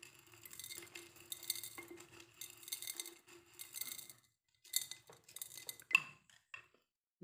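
Lumps of rock sugar clattering into a glass jar as they are pushed out of a ceramic bowl with a spoon. The rattling clinks come in quick runs, then a few separate ones, the sharpest about six seconds in.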